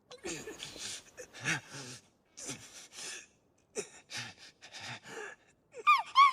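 A young man coughing hard, again and again, with rough gasps between the coughs: a fit that he puts down to a family condition that made his mother cough up blood. Near the end come two short, high-pitched yips, each falling in pitch, from a small dog-like creature.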